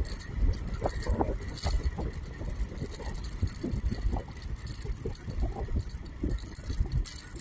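Wind rumbling and buffeting on the microphone of a camera moving along an asphalt road, gusting irregularly, with a faint steady high tone underneath.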